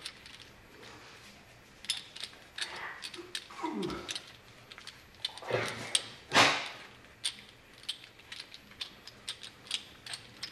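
Steel balls, cage and inner race of a BMW E36 half shaft's CV joint clicking and clinking as the joint is twisted by hand to drop in the last ball. Two louder short sounds break in around four and six seconds in.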